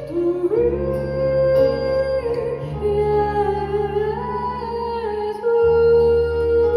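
Female singer singing long held notes with vibrato, backed by a live band with bass, heard from the audience of a concert hall.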